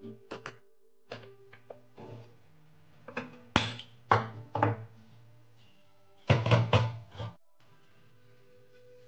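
Kitchen knocks and clinks over soft background music: a few light clicks of a spoon against a steel mixer jar, then louder knocks as the gas hob is lit and a heavy black cooking pot is set on the burner, the heaviest cluster just after the middle.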